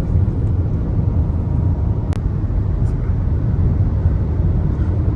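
Steady low road and engine rumble inside a moving vehicle's cabin, with one sharp click about two seconds in.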